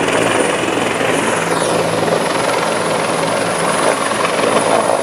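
Small personal helicopter coming in to land close by: loud, steady rotor and engine noise.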